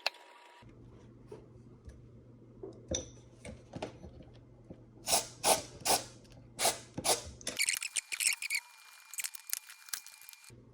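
A steady low hum with a run of sharp clicks and scrapes, loudest in a quick series around the middle, from the Times transistor radio's switches and controls being worked. Near the end the hum drops out, leaving a thin steady high tone.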